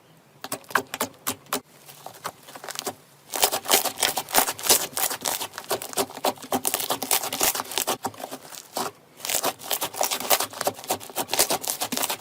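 Slime being squished and pressed by hand, giving off crackling and popping clicks. The clicks are sparse at first, turn dense about three seconds in, and pause briefly near the end before going on.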